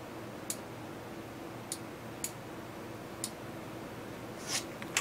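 Computer mouse clicking: four single sharp clicks spaced roughly a second apart, then a short rustle and one more click near the end, over a faint steady low hum.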